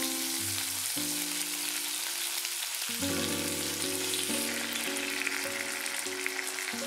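Tomato wedges and a garlic clove sizzling in hot oil in a frying pan: a dense, steady frying hiss, with background music underneath.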